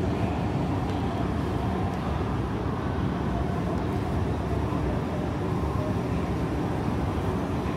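Steady low rumble of a large railway station hall's background noise, with no distinct events.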